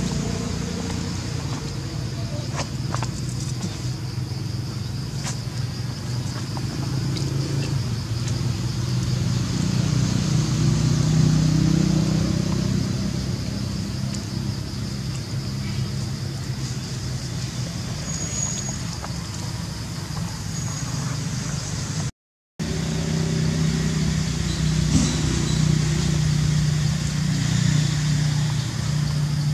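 A motor running steadily with a low, even hum under a constant high drone, with a few faint clicks. The sound cuts out briefly about two-thirds of the way through.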